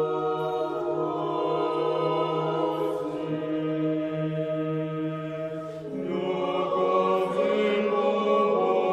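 Choral chant: several voices singing sustained notes over a steady low held note, with the chord shifting about six seconds in.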